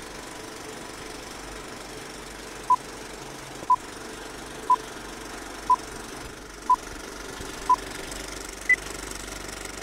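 Film countdown leader: short beeps once a second, six at one pitch and then a single higher beep, over a steady film-projector clatter and hiss.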